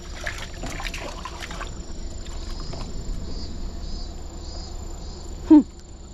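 Water splashing at the surface as a lure is worked close to a rock wall, for the first second or two; then insects chirping in a steady high pulse, about two or three chirps a second. A short, loud falling sound cuts in about five and a half seconds in.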